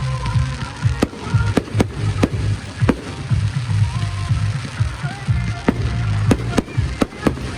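Fireworks bursting overhead in a run of about ten sharp bangs at uneven intervals, over loud music with a heavy bass played for the synchronised display.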